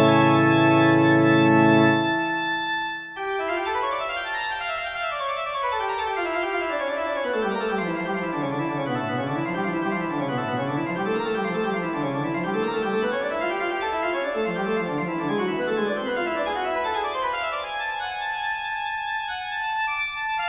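Instrumental keyboard music: a loud held chord for about two seconds, then fast runs of notes that sweep down and back up in waves.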